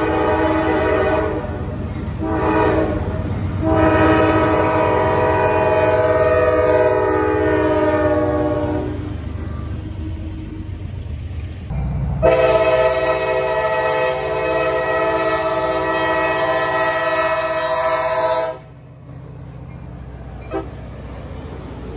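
Diesel locomotive air horns over the low rumble of trains: a few short blasts, then a long blast that fades out. Then a second horn with a different chord sounds one long blast that starts and stops abruptly, leaving only the quieter rumble of a locomotive.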